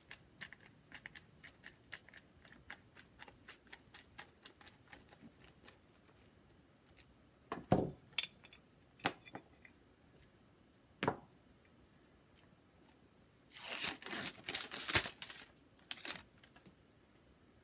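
Gloved hands handling a mug wrap clamp and a hot sublimation mug: scattered light clicks and a few knocks, then a stretch of paper crinkling and tearing about three-quarters of the way through.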